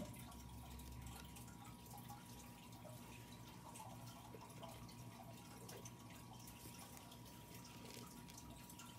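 Near silence with faint, scattered small clicks of plastic perler beads being set onto a plastic pegboard, over a faint steady tone.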